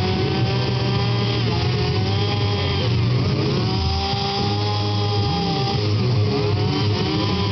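Two-stroke chainsaw running as it carves wood. The engine pitch dips and rises again about every three seconds as the throttle is eased and opened.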